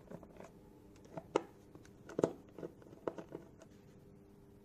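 Screwdriver working the metal screws out of a KTM Duke 250's plastic air-filter box cover: a handful of light clicks and taps, the sharpest about a second and a half and two seconds in, over a faint steady hum.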